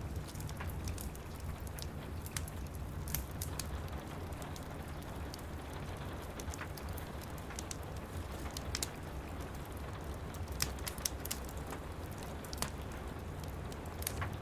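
Steady rain with a low rumble, mixed with the irregular sharp pops and crackles of a wood fire.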